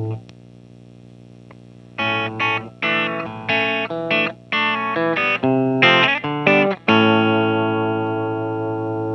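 Electric guitar played through a Schu-Tone Blind Squirrel optical compressor pedal. A chord is cut off, and after a short pause comes a quick phrase of short, choppy notes. The phrase ends on a chord left ringing with long, even sustain.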